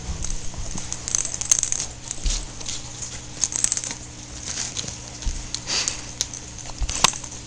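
Two kittens playing on carpet: irregular soft rustles, pats and small clicks as they scuffle, pounce and bat a small toy, with a sharper click about seven seconds in.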